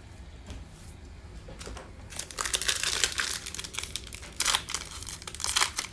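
A 2020 Panini Mosaic football card pack's wrapper being torn open and crinkled by hand. It starts about two seconds in and goes on as a dense, crackling rustle.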